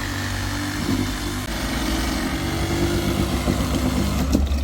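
Power saw cutting through the shed's framing, a steady mechanical running with a noisy edge, over a lower engine hum; the saw stops abruptly near the end.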